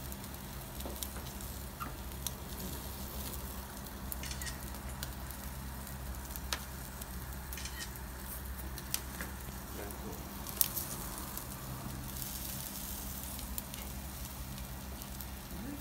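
Meat and vegetable skewers sizzling on a wire grate over glowing charcoal: a steady hiss broken by scattered sharp crackles and pops. A low steady hum runs underneath.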